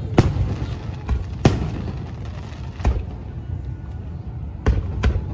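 Aerial fireworks shells bursting: five sharp booms spaced about a second or more apart, two close together near the end, over a continuous low rumble.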